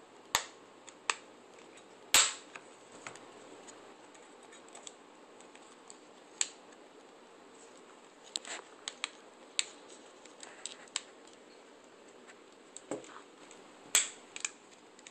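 Plastic snap clips of a Samsung Galaxy S Captivate's housing clicking as the cover is pried off by fingernail: a scattering of sharp clicks, the loudest about two seconds in and another near the end.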